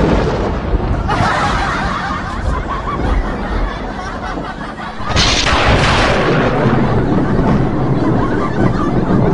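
A thunderclap-like blast sound effect: the tail of one blast fades out early on, then a second sudden loud bang hits about five seconds in and dies away slowly. Men are laughing through it.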